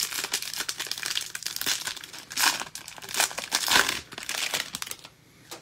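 Foil wrapper of a baseball card pack being torn open and crinkled by hand, a dense irregular crackle that stops near the end.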